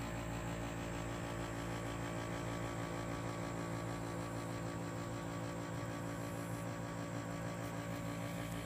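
Steady low hum with a stack of evenly spaced overtones.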